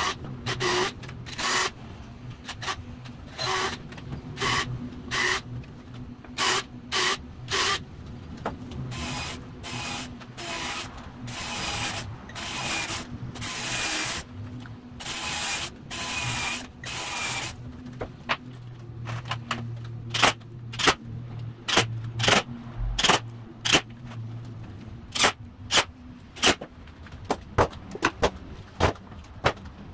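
Cordless drill run in short bursts, then in longer runs whose motor pitch rises and sags under load as it drives into the wooden box. From about 18 seconds in, a string of sharp clicks and knocks replaces the drill.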